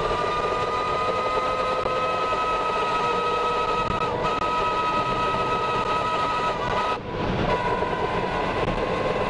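Tornado winds rushing around the armoured Tornado Intercept Vehicle: a loud, steady rushing noise with several steady whistling tones over it. The sound dips briefly about seven seconds in.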